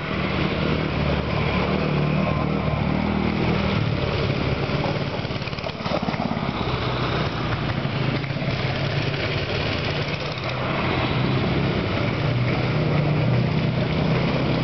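Small single-cylinder engines of a Honda TRX90 youth quad and a 90cc Doodlebug mini bike running around a tight backyard track, the engine note shifting up and down as the riders throttle on and ease off.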